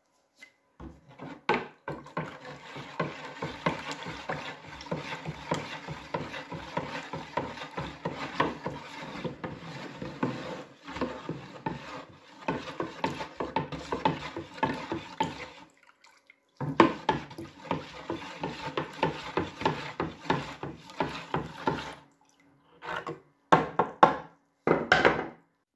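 A flat wooden stick stirring water in a plastic jug, the water swishing and the stick knocking and scraping against the jug's sides, mixing powder into an electrolysis bath. The stirring pauses twice and ends in a few short strokes.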